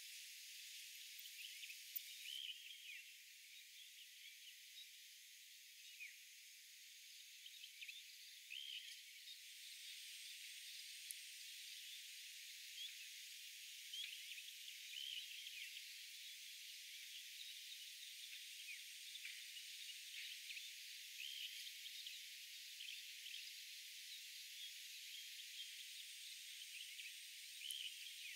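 Faint outdoor ambience with no low end: a steady high hiss with many short, scattered high chirps running through it.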